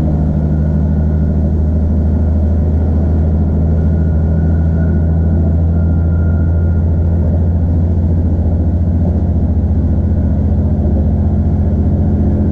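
Iarnród Éireann Class 2600 diesel multiple unit heard from inside the carriage while it runs along the line: a steady low diesel drone with running noise. A faint thin whine rises and fades around the middle.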